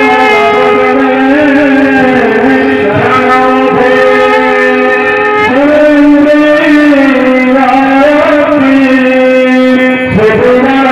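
Loud devotional instrumental music with long held notes, the main note stepping to a new pitch about halfway through.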